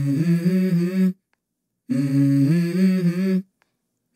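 A voice humming a short stepping melody, in two phrases with about a second of silence between them.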